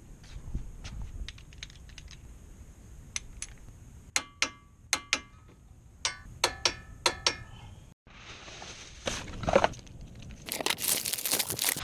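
Metal tools and brake parts being handled: light clicks, then a run of sharp metallic clinks with a short ring. After a brief break this gives way to louder scraping and rustling.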